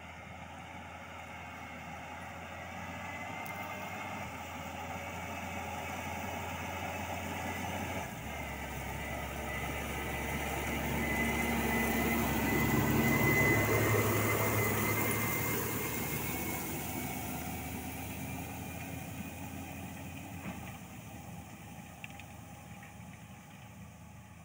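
Claas Ares 946 RZ tractor running under load as it pulls a disc harrow through stubble. It grows louder as it approaches, is loudest as it passes close by about halfway through, then fades as it draws away.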